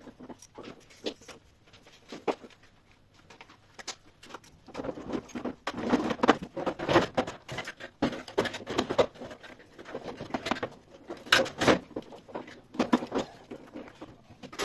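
Irregular clicks, knocks and scrapes of a heat-pump clothes dryer's plastic drain-pump housing and reservoir being handled and fitted back together, busiest in the second half.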